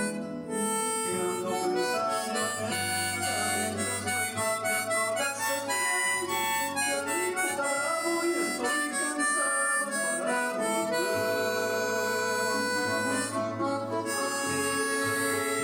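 Harmonica in C playing a melody in the key of G, notes held and changing steadily, over an accompaniment with sustained low bass notes.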